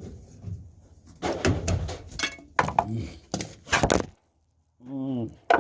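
Clattering knocks from sheet-metal ductwork being worked by hand, a run of sharp hits that stops abruptly about four seconds in. A short wavering hum follows, then a single sharp click.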